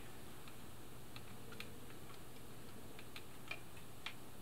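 Faint, irregular small clicks of plastic and metal parts being handled as the carbon-brush slider is eased off the board of a sewing machine foot controller, about half a dozen clicks over a steady low hum.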